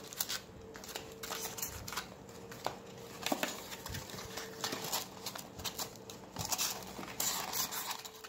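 Foil trading-card packs crinkling and a cardboard box rustling as the packs are handled and pulled out of the box, in irregular crinkles and rustles with a few light taps.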